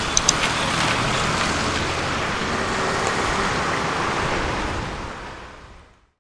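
Steady rushing background noise with a low rumble, like passing traffic or wind on the microphone, with a few sharp clicks just after the start; it fades out about five seconds in.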